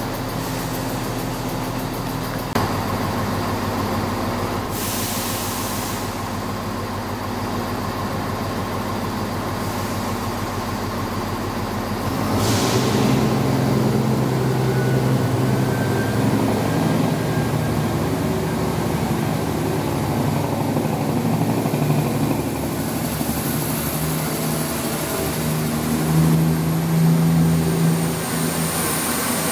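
Chiltern Railways diesel multiple unit moving along the platform, its underfloor diesel engines running with a steady hum that grows louder about twelve seconds in. A brief hiss sounds near the start.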